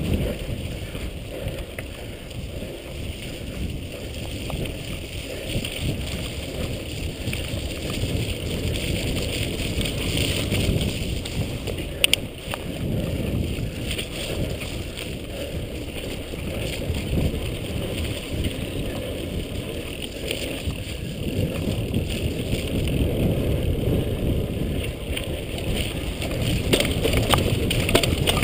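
Mountain bike riding fast down a dirt forest trail: a steady rumble and rattle of the bike over the ground with wind rushing over the camera's microphone, and one sharp knock about twelve seconds in.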